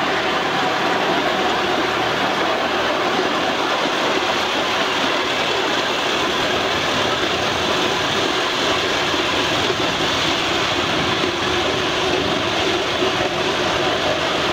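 Miniature live-steam locomotive standing at rest with steam hissing steadily, without any chuffing.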